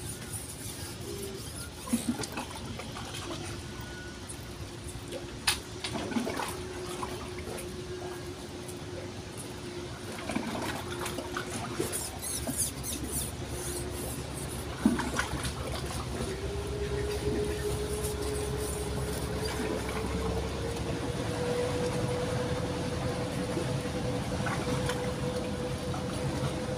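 Running river water, with a steady humming drone that slides up in pitch about two-thirds of the way through, and a few sharp clicks.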